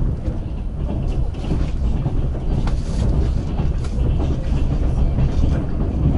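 Passenger train running along the track, heard from aboard: a steady low rumble of wheels on rail with a few faint clicks.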